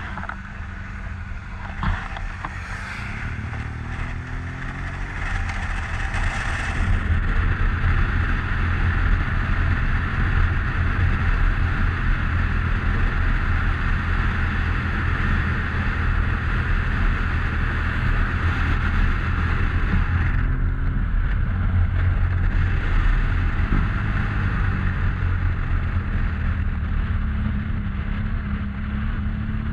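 Motorcycle engine running under way, with heavy wind noise on the microphone. Engine and wind build over the first several seconds as the bike gathers speed, ease off briefly about two-thirds through, and pick up again near the end.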